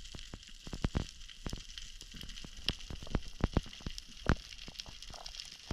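Underwater crackling: a steady hiss full of irregular sharp clicks and pops, several a second, with a few louder ones.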